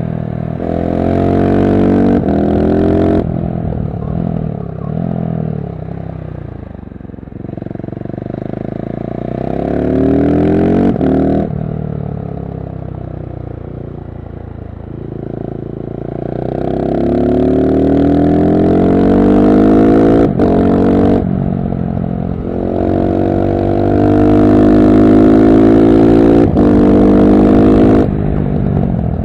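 KTM SMC-R 690's single-cylinder engine through a LeoVince One Evo slip-on exhaust (dB-killer fitted), under way. It pulls hard at first, then the revs fall away through the middle as the throttle is rolled off, and it climbs again, loud, through several quick upshifts in the last third.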